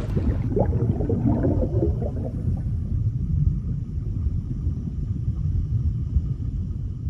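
Underwater sound effect: a deep, continuous rumble with bubbling and gurgling in the first two or three seconds.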